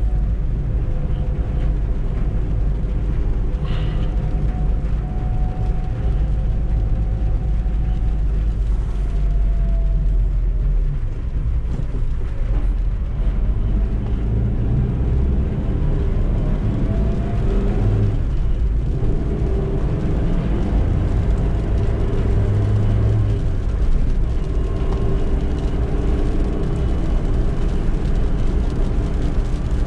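Suzuki Eeco's 1.2-litre four-cylinder engine running under way, with steady low rumble and road noise; the engine note drifts down and up a few times as the van changes speed.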